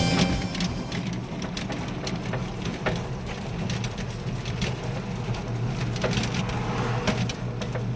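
Raindrops ticking irregularly on a truck cab's roof and windscreen, over a steady low hum from the moving vehicle.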